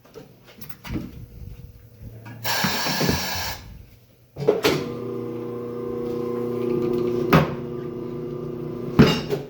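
Tire changing machine working a tire bead onto the rim: a hiss about a second long about two and a half seconds in, then the turntable motor running with a steady hum for several seconds, with a couple of sharp metal clanks.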